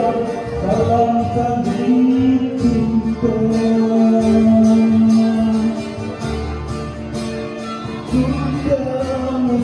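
Background music: a sung pop song with guitar and a steady beat.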